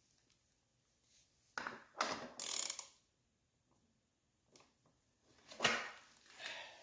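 Metal hand tools on a three-wheeler's front axle and fork nuts: short bursts of ratchet-like clicking and clatter, and a sharp knock about two-thirds of the way through.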